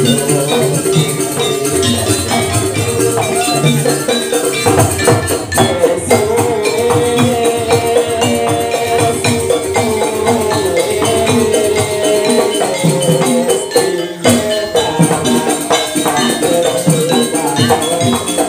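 Live jaranan ensemble music accompanying the dance: drums and struck percussion playing a busy, steady rhythm under sustained melodic tones.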